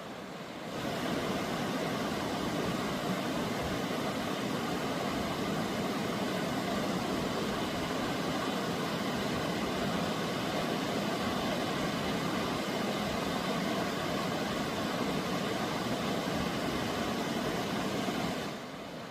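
Steady rush of fast-flowing water on Tumalo Creek, an even hiss that rises about a second in and falls away near the end.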